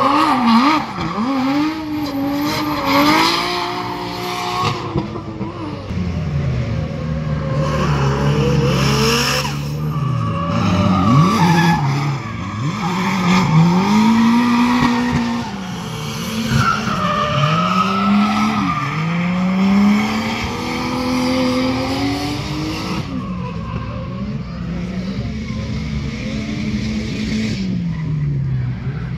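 Drift cars sliding through a hairpin: engines revving up and down in repeated swells with each throttle blip and shift, over tires squealing and skidding.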